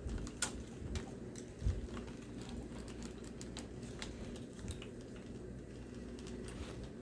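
Scattered light clicks and taps of hands handling the plastic body and chassis parts of an RC truck during disassembly, over a steady low hum.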